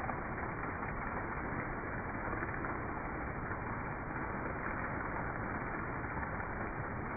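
Steady rain falling, an even wash of noise with no separate drops or other events standing out.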